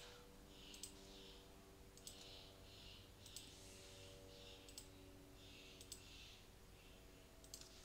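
Faint single clicks of a computer pointing device, roughly one a second at uneven spacing, over a low steady hum.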